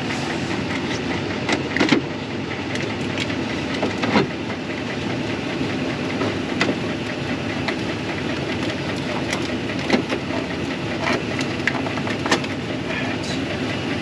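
Pickup truck idling steadily, with scattered clicks and knocks as the snow plow's power and controller connectors are handled and plugged in.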